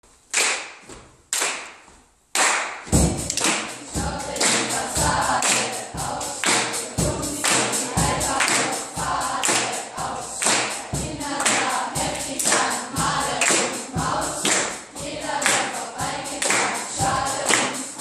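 Drum kit: a few single strikes that ring out, then a steady beat starting about two and a half seconds in, with a group of children rapping in unison over it.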